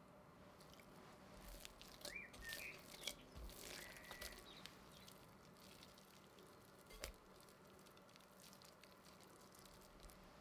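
Quiet, sticky squelching of oiled potato and scallion dough being squeezed and folded by hand in a glass bowl, with a couple of short high squeaks a couple of seconds in. A single soft knock about seven seconds in.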